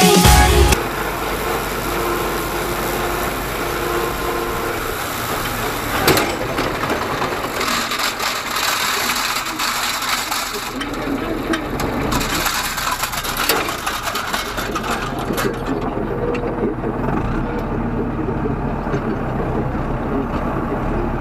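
Tractor engine running steadily while a tractor-mounted drum mower cuts grass. Electronic music cuts off in the first second.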